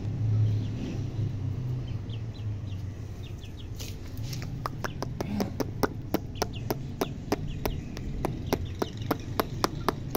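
Chickens pecking feed off a hard tiled floor: a run of sharp taps, about four a second, starting about four seconds in. Before the tapping come faint high chick peeps, and a low rumble at the start fades out after about two seconds.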